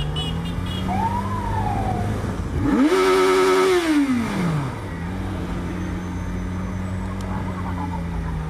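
Yamaha XJ6 inline-four motorcycle idling, revved hard about three seconds in and held at high revs for about a second, then falling back to a steady idle.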